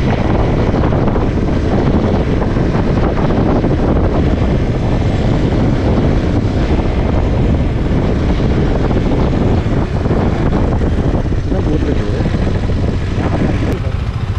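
Motorcycle on the move: the engine's steady drone buried in heavy wind rush over the microphone.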